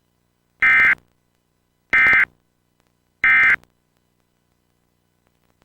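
Emergency Alert System end-of-message code: three short, harsh digital data bursts, evenly spaced about a second and a quarter apart. They mark the close of the test message.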